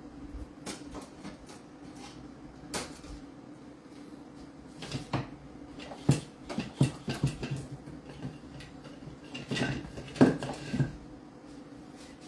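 Kitchen handling noises: a run of knocks and clinks of dishes and utensils, scattered at first and busiest in the second half, over a low steady hum.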